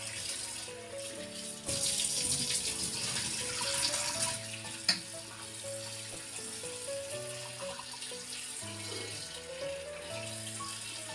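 Carrots being washed by hand in a basin of water: water splashing and sloshing, loudest for a couple of seconds near the start, with a single sharp knock about five seconds in. Background music with a simple melody plays throughout.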